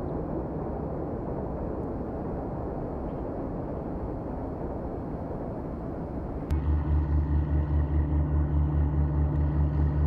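A steady low rumble, then about six and a half seconds in a work boat's engine comes in suddenly and louder, a deep throb pulsing about four times a second.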